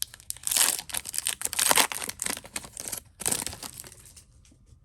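Foil wrapper of a trading card pack crinkling as it is torn open and handled, in several loud rustling bursts that die down to a few faint ticks near the end.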